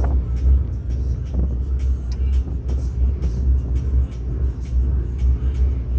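Low, steady rumble of a cargo landing craft's engines as the vessel moves slowly close by, with faint crackling on top.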